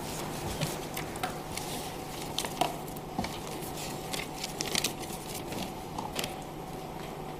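Hall room tone with a faint steady hum, broken by scattered small clicks and rustles of objects and papers being handled.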